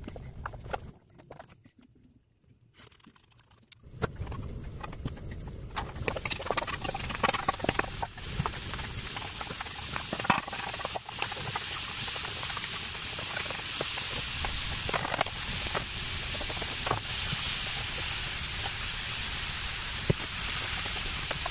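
Sliced radish and zucchini sizzling in a hot wok, with the wooden spatula clicking and scraping against the pan. The frying starts after a short quiet gap about four seconds in and settles into a steady hiss.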